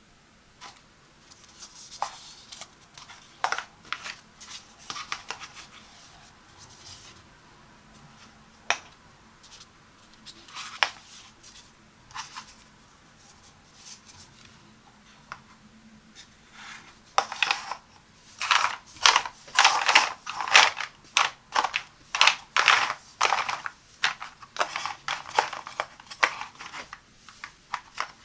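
Plastic single-serve coffee pods handled and set down on a tabletop. There are scattered clicks and taps at first, then a dense run of quick plastic clacks for about ten seconds as the pods are laid out together.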